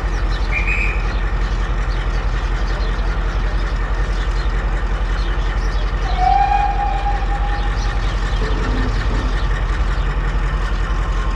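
Passenger train's coaches moving slowly along the platform with a steady low rumble. A short squeal comes about six seconds in.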